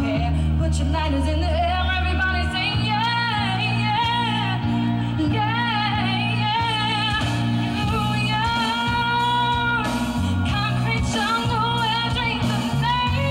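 A woman singing a song live into a handheld microphone over instrumental accompaniment, her held notes wavering with vibrato above a steady bass line.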